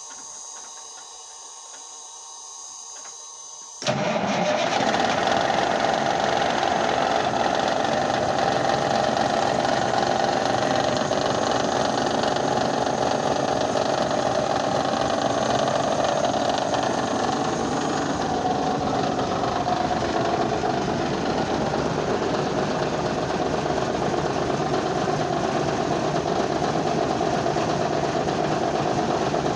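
Ford LT9000 heavy truck's diesel engine on a cold start: a quieter steady cranking for about four seconds, then the engine fires abruptly and runs loud and steady at idle.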